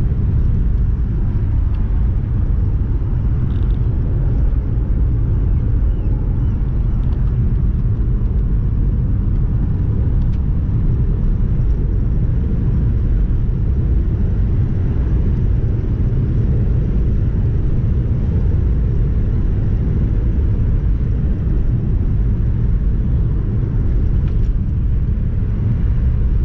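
Steady low rumble of a car driving along a road, heard from inside the cabin: tyre and engine noise at an even speed.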